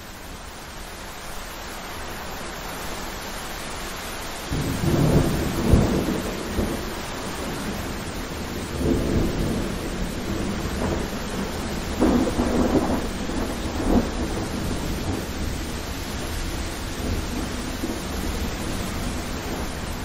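Thunderstorm: steady rain with rolling thunder. A long, loud rumble comes about five seconds in, with further rumbles near nine seconds and between twelve and fourteen seconds.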